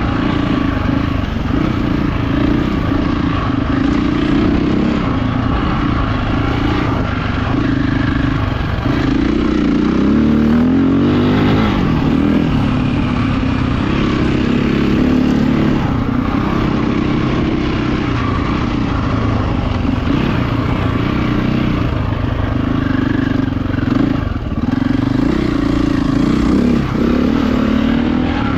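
Enduro motorcycle engine heard up close from the rider's own bike, running without a break as the throttle is worked over rough trail, the revs rising and falling; they climb clearly about ten seconds in.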